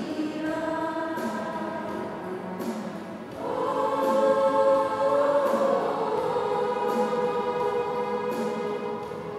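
Women's choir singing a hymn in two parts, holding long notes, swelling louder about three and a half seconds in.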